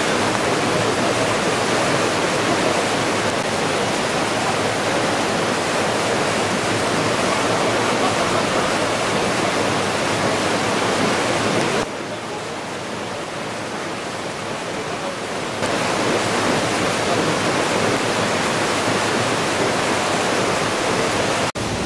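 River in flood rushing and churning through the railings of a debris-clogged steel footbridge: a loud, steady water rush that turns quieter for a few seconds about halfway through.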